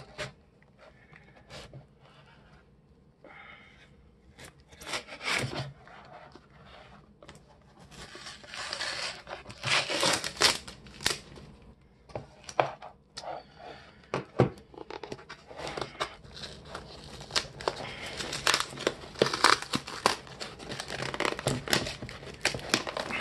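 A cardboard mailing box being cut and torn open, with packing tape and the box's adhesive flap tearing and crinkling. There are a few sparse clicks at first, then a third of the way in come longer rasping tearing bursts mixed with clicks and knocks.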